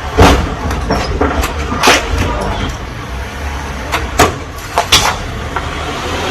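Low vehicle rumble with several sharp knocks and clunks. The loudest come in the first two seconds, and two more fall close together about four to five seconds in.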